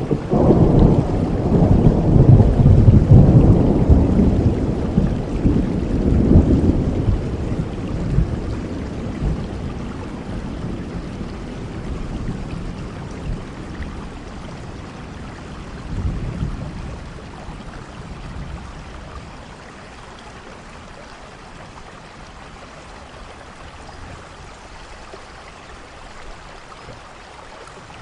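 Thunderstorm: a long, loud roll of thunder over the first several seconds that slowly dies away, a smaller rumble about halfway through, over steady rain.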